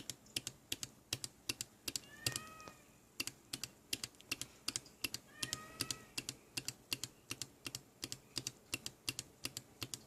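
A manual clock pushbutton on a breadboarded RCA 1802 COSMAC computer being pressed over and over, clicking about three or four times a second, to single-step the slow processor one clock cycle at a time. A faint high cry, bending in pitch, comes twice, about 2 and 5.5 seconds in.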